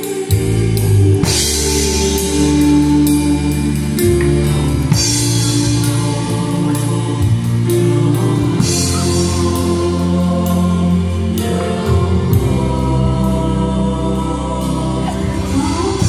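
A live band playing a song with a singer: keyboards, a low bass line and a drum kit keeping a steady beat with regular cymbal strokes.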